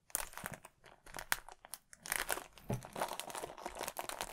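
Thin plastic film around a LEGO instruction booklet crinkling and tearing as fingers pick at it and pull it open, in irregular small crackles.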